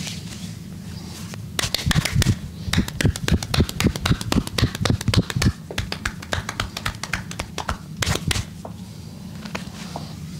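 Percussive massage strokes: hands tapping rapidly on the body, about five strikes a second. They start about a second and a half in and stop near eight and a half seconds.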